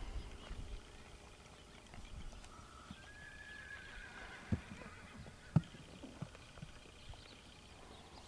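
A horse whinnies once about three seconds in, a long call that rises and then levels off. Then come a few separate hoof knocks, the loudest a little after five seconds, as a Tennessee Walking Horse steps up onto a low platform and halts.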